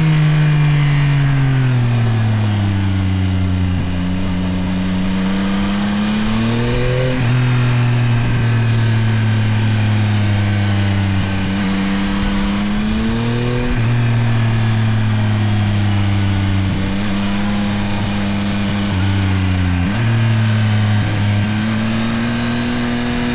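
Yamaha Tracer 9 GT+ motorcycle's CP3 890 cc inline-three engine under way, its note falling and climbing again several times with the throttle. There are abrupt jumps in pitch about a third and two thirds of the way through, and again near the end.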